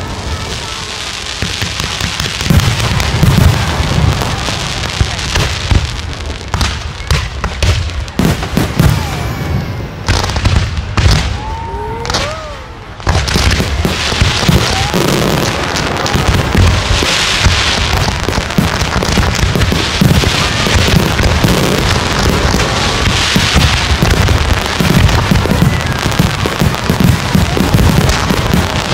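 Aerial fireworks shells bursting at close range, a dense run of deep booms and crackling with hardly a break. There is a short lull about twelve seconds in, then the bursts come even thicker.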